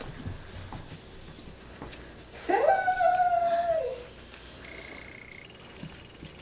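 A Nova Scotia duck tolling retriever (Toller) gives one long, high whine about two and a half seconds in. It rises quickly, holds steady for over a second, then drops away. A couple of faint, thin squeaks follow.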